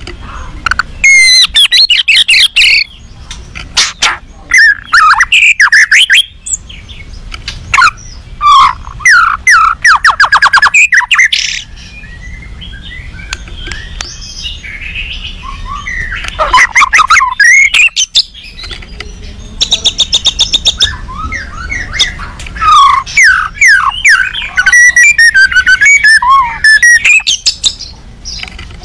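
White-rumped shama singing its agitated, aggressive song in loud bursts: fast runs of repeated clicking notes and quick rising and falling whistled phrases, with short pauses between them.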